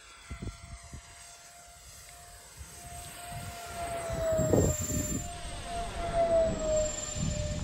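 Twin electric ducted fans on an RC foam flying wing, running with a steady high whine. The whine grows louder from about three seconds in as the plane passes overhead, and its pitch dips as it goes by.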